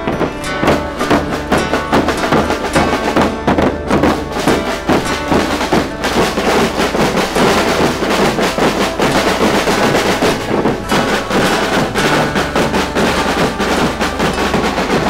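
Marching drum band music: snare drums and a bass drum played in a fast, continuous beat, with some sustained melody notes alongside.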